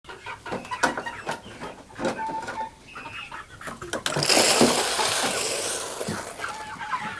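Young pullets peeping, with scattered light clicks and scratching. About four seconds in, a loud rushing hiss lasts roughly two seconds as feed is poured from a cup into a plastic feed tray on the floor.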